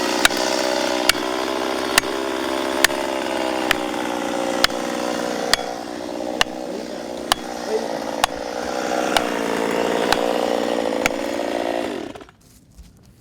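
Chainsaw engine running steadily while cutting, its pitch sagging for a few seconds mid-way and then recovering, with a sharp tick about once a second. Near the end the engine pitch falls and the saw stops.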